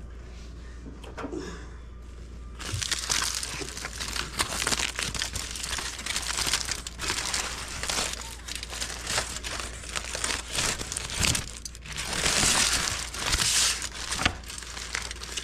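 Takeout sandwich wrapping being unwrapped by hand: a dense, crackly crinkling of paper or foil that starts a couple of seconds in and runs in loud handfuls until near the end.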